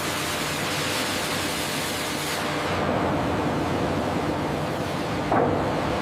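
Steady machine noise, a dense hiss with a faint hum underneath, with a short louder surge about five and a half seconds in.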